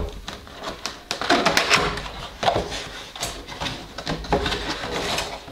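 A cardboard model-kit box being handled and opened, its inner cardboard tray sliding out. The sound is a run of irregular scraping and rubbing with a few light knocks.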